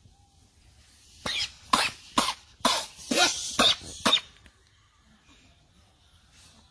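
A fit of harsh coughing: about seven loud coughs in quick succession, starting about a second in and stopping about four seconds in.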